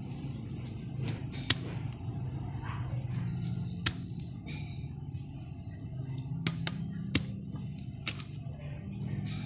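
Digging in soil: about seven sharp, irregular knocks of a hand tool striking the earth, over a steady low hum.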